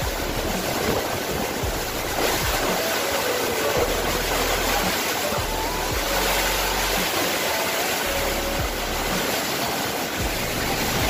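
Heavy typhoon rain and strong wind: a dense, steady rushing noise.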